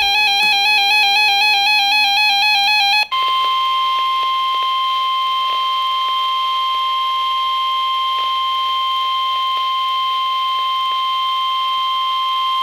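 A weather alert radio's own warbling alarm for about three seconds. After a brief break comes the steady single-pitch NOAA Weather Radio warning alarm tone, held for about nine seconds. That tone signals that a warning broadcast, here a severe thunderstorm warning, is about to be read.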